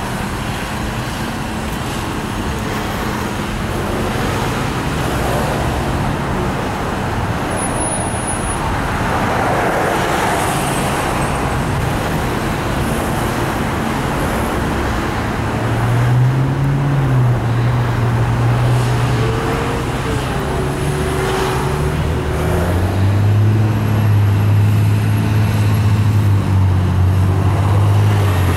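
Steady road traffic, cars passing through an intersection. About halfway through, a loud low engine note joins and rises in steps: a city bus pulling away.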